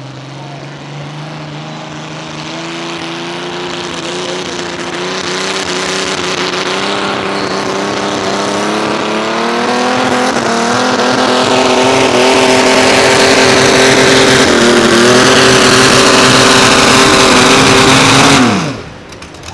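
Mini rod pulling tractor's engine running hard on a pull down the track. It grows steadily louder, its pitch climbing and then holding high, with a brief dip about 15 seconds in. Near the end the engine winds down and the sound drops off sharply.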